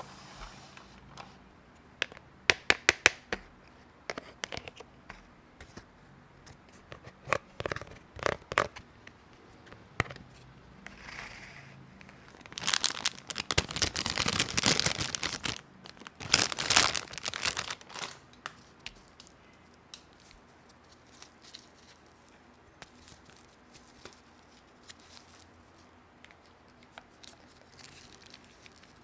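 Toy packaging being handled and unwrapped: a few sharp clicks and taps, then two spells of tearing and crinkling about halfway through.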